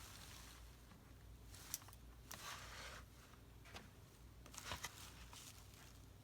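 Faint rustling of paper being handled, with a couple of small clicks.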